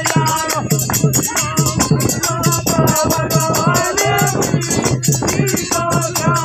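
Dehati folk dance song playing: a singer's voice over a steady drum beat with jingling, rattle-like percussion.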